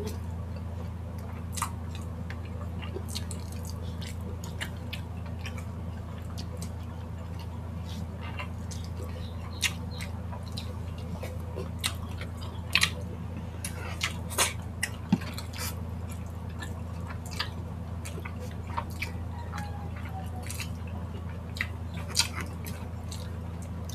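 Wet chewing and scattered sharp mouth clicks at irregular intervals, from people eating saucy spicy chicken feet by hand, over a steady low hum.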